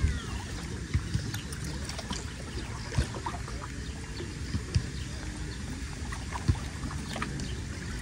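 Wind buffeting the microphone as a steady low rumble, with a few short knocks spread through it.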